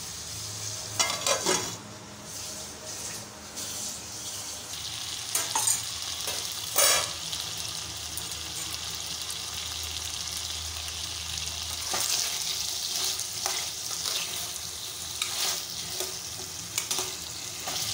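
Chicken pieces frying in oil in a pan, sizzling steadily, with a few sharp scrapes of a spatula stirring them.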